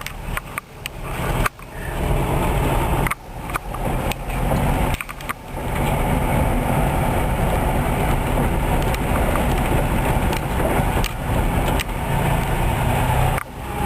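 1964 Volkswagen Beetle's air-cooled 1600 cc flat-four engine running under way, heard from inside the car, with its exhaust leak freshly repaired. The sound drops briefly a few times, about three and five seconds in.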